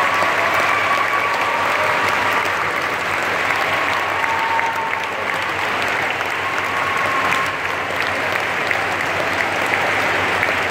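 A large audience applauding steadily inside a cathedral: dense, sustained clapping from a packed congregation after a choir's song.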